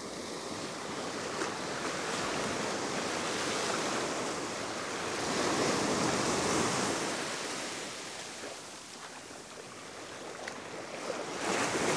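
Surf washing onto a sandy beach: a steady hiss of breaking water that swells, eases, and builds again near the end as successive waves come in.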